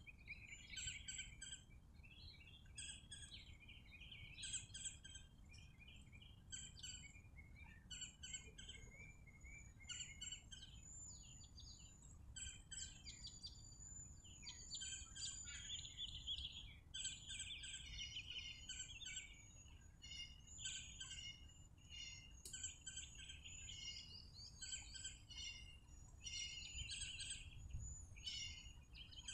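Faint bird chirps and calls, many short overlapping notes with no let-up, over a low background rumble.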